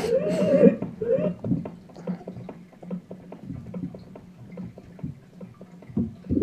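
Electronic keyboard playing its novelty sound-effect voices key by key: an arching animal-like cry at the start and a shorter one about a second in, then a string of short sounds with key clicks, over a steady low hum.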